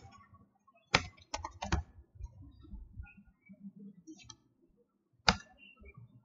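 Keystrokes on a computer keyboard typing a short file name: a quick run of key presses about a second in, then scattered lighter taps, and a single louder click near the end as the file is saved.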